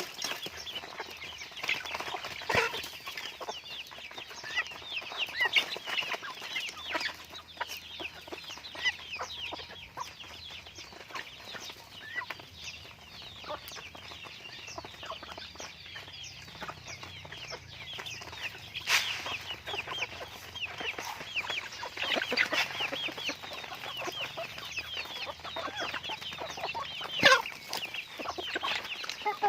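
A flock of chickens clucking and chirping without a break, dense short falling calls, with a few sharp clicks about two-thirds of the way through and near the end.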